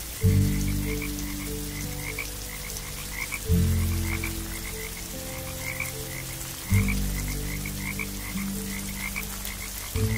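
Frogs croaking: a fast run of short chirps, about four or five a second, with a louder, deeper sound starting suddenly about every three seconds.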